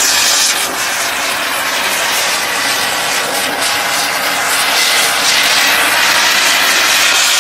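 Handheld gas blowtorch burning with a loud, steady hiss as its flame chars a wooden door.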